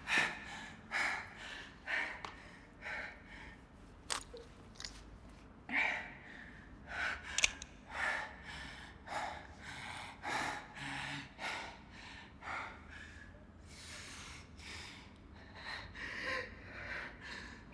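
A person breathing hard in ragged gasps, about one breath a second, with a couple of sharp clicks.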